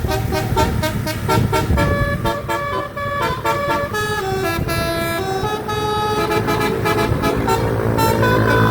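Tour bus 'telolet' multi-tone horn playing a melody: quick repeated notes for about the first two seconds, then a run of held notes stepping up and down in pitch, with a low rumble underneath.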